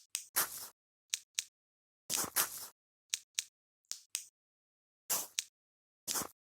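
Dry forest-floor foley, twigs and leaves crunched and snapped: short crunches, several followed by one or two sharp snaps, each sample cut off into dead silence.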